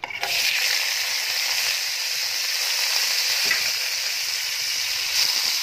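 Sliced onions dropped into hot oil in a pan, setting off a loud, steady sizzle that starts suddenly and carries on as they fry.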